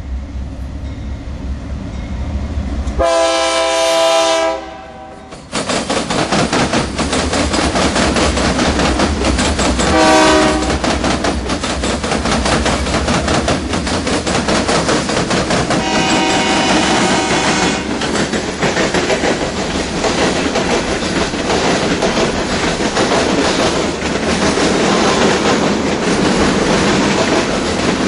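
Diesel freight locomotive horns sounding: a blast about three seconds in, a short toot around ten seconds, and another blast about sixteen seconds in. Between them is the steady rumble and clatter of a freight train passing close by.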